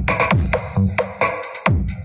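Electronic dance music with a heavy kick drum and sharp percussion hits, about two beats a second, played loud.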